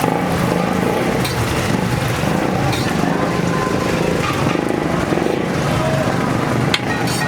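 Steady engine-like rumble with voices in the background and a few short sharp clicks, the clearest near the end.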